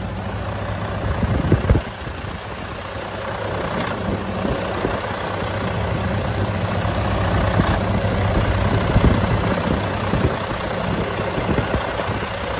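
Detroit diesel engine in a Western Star dump truck idling steadily with the hood open, heard up close; it sounds clean with no blow-by. A brief knock comes a couple of seconds in.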